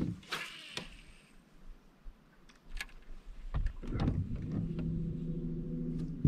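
Baitcasting reel during a cast and retrieve. Its spool whirs briefly as the crankbait is cast, a few light clicks follow, and from about three and a half seconds in the reel is cranked in a steady, low gear whir until near the end.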